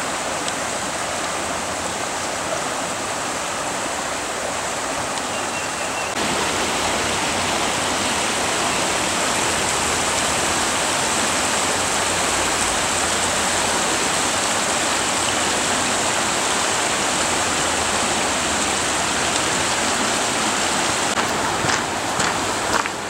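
Steady rushing of a mountain stream or waterfall. It gets louder about six seconds in, and a few sharp clicks come near the end.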